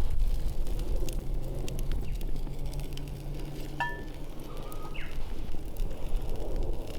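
Wood campfire crackling with scattered sharp pops over a low steady rumble, and a short high chirp about four seconds in.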